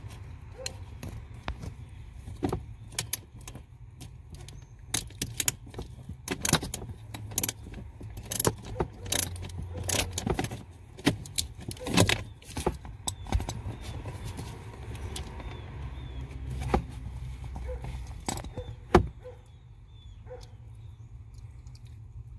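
Irregular sharp metallic clicks and clinks of an 8 mm socket and ratchet working the one bolt that holds a blower motor resistor, with a loud clack near the end. A steady low hum runs underneath.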